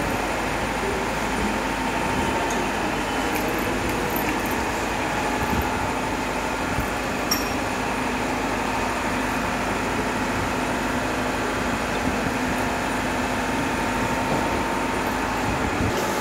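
Steady humming noise with a few faint held tones and occasional faint clicks.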